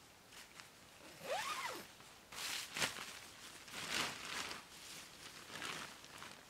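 Tent door zipper being pulled in several short strokes; the first stroke's pitch rises and then falls.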